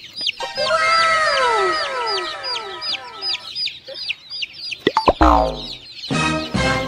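A crowd of chicks peeping: short, high calls repeating several times a second, with overlapping falling calls in the first half. A sudden louder, low sliding sound about five seconds in.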